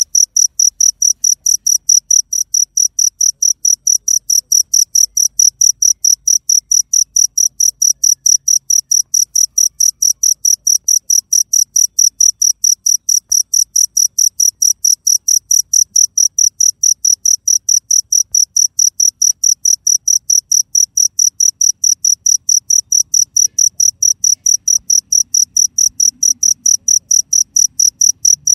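Cricket chirping steadily: a loud, high, evenly spaced chirp repeated several times a second without a break.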